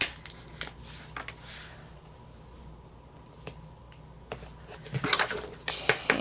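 Planner stickers being peeled from their sheets and pressed onto paper planner pages: scattered light taps and paper rustles, busier near the end.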